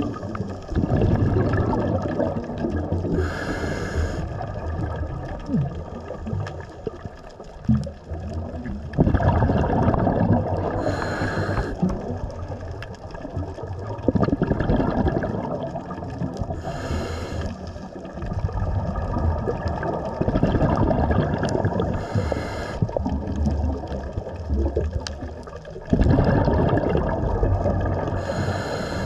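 Underwater breathing through a scuba regulator: a short hiss on each inhale, five times about every five to six seconds, alternating with a low gurgling rumble of exhaled bubbles.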